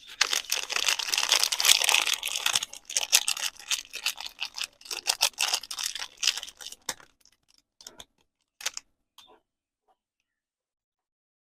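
Soap packaging being handled and unwrapped: dense crinkling and rustling for about seven seconds, then three short separate crinkles.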